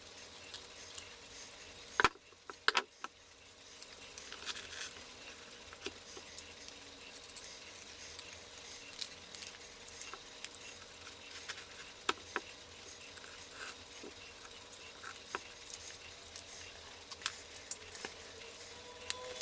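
Light scratching and irregular small clicks from parts of a cuckoo clock being handled and fitted at the workbench, with a few sharper clicks about two to three seconds in.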